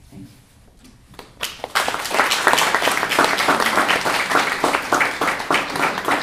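Audience applauding. Dense clapping breaks out about a second and a half in and keeps up at a steady level.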